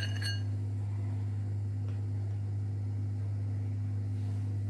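Steady low electrical hum, with a brief light clink right at the start.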